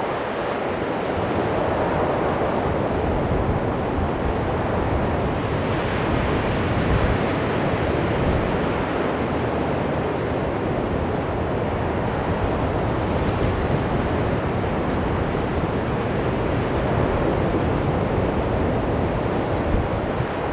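Ocean surf washing onto a beach in a steady roar of breaking waves that swells and eases gently, with wind rumbling on the microphone.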